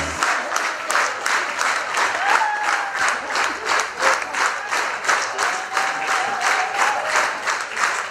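Audience applauding, the clapping falling into a steady shared rhythm of about four claps a second.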